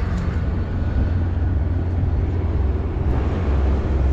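Strong wind buffeting the microphone: a steady low rumble with a hiss above it.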